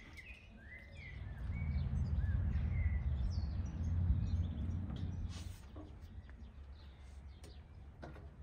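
Small birds chirping, with a low rumble that swells about a second and a half in and fades out about four seconds later, and a few light clicks.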